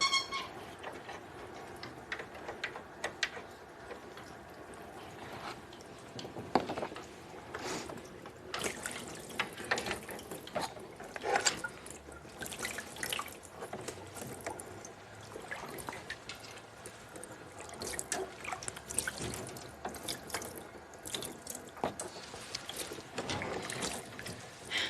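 Water running and dripping in a darkroom sink, with a steady trickle and many scattered drips and small splashes.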